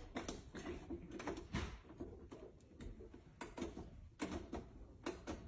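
Faint, irregular clicks and knocks of metal handcuffs and padlocked restraints shifting and tapping against their box as the wearer works at them.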